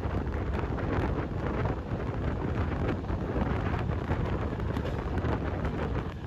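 Steady rumbling running noise of the Güney Kurtalan Ekspresi passenger train under way.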